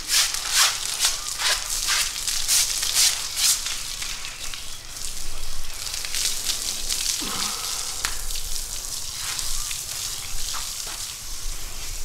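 Hissing spray and scratchy scrubbing on an elephant's hide as it is washed, with a quick run of brisk strokes over the first few seconds and then a steadier hiss.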